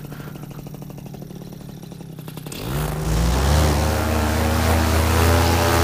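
Paramotor's two-stroke engine idling, then throttled up about two and a half seconds in. It rises in pitch to a loud, steady full-power run with the propeller driving for takeoff.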